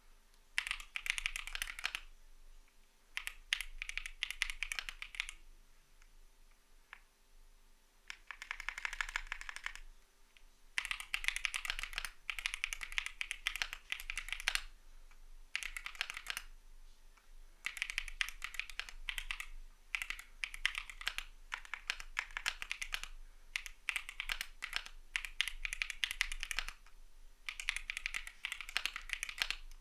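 Typing on a CIDOO V75 mechanical keyboard with Matte switches: fast runs of key presses in bursts of a few seconds, broken by short pauses.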